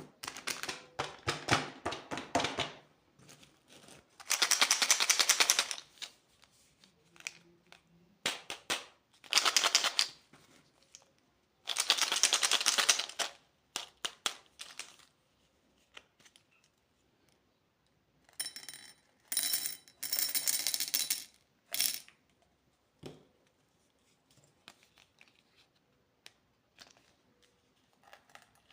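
Candy packaging being handled: several separate bursts of rattling and crinkling, each a second or two long, with pauses between them.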